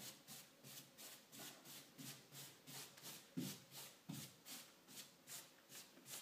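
Paintbrush swishing back and forth across a wall as Valspar Brushed Suede paint is worked on with the long side of the brush: faint, quick, even strokes, about three a second.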